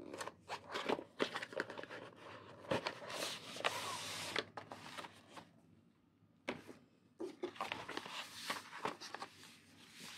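White cardboard box trays and paper packaging being handled: light taps and knocks of the card, with a longer rustling slide about three to four seconds in, a short pause, then more rustling and tapping as a paper sleeve is handled.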